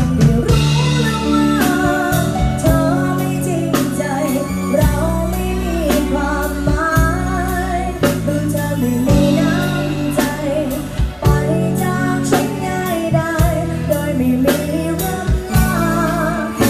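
Music: a song with a singing voice over long, heavy bass notes and a steady drum beat.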